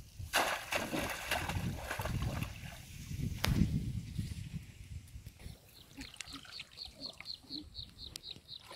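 Water splashing and sloshing with rice stalks rustling as a person wades and gropes with her hands in a flooded rice paddy, with a sharp click about halfway through. It then quietens, and a fast, even run of short high chirps, about five a second, takes over for the last few seconds.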